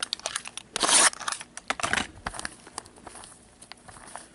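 A sealed cardboard box of hockey cards being torn open by gloved hands: a loud tearing rip about a second in, then crinkling and crackling that die down toward the end.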